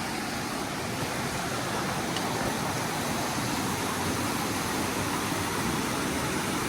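Steady rushing of river rapids in a rocky gorge.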